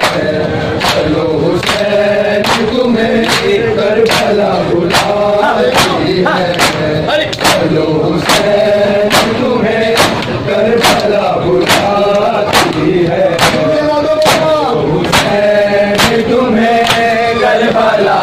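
Shia matam: a crowd of men chanting a Muharram lament together while striking their bare chests in unison. The chest slaps are sharp and come steadily, a little more than once a second.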